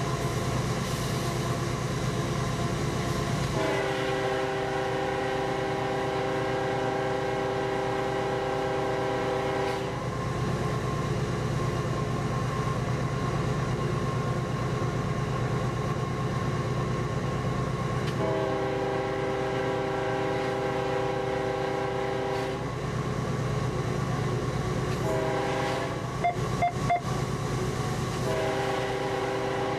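Locomotive air horn sounded from inside the cab, a chord of several tones, in the grade-crossing pattern: two long blasts, a short one, then a final long one starting near the end, warning of the crossing ahead. Underneath runs the steady rumble of the locomotive and its wheels on the rails, and a few sharp clicks come just after the short blast.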